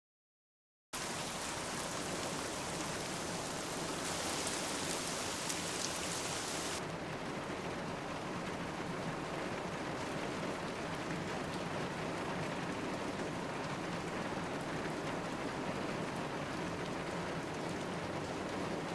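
Steady rain falling on a car, heard from inside the cabin. It starts suddenly about a second in and is hissier for the first few seconds, then softer.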